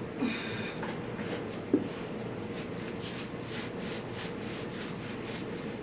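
Soft repeated rubbing and rustling of hands at work, about two or three strokes a second, with a single sharp knock a little under two seconds in, over a steady low hum.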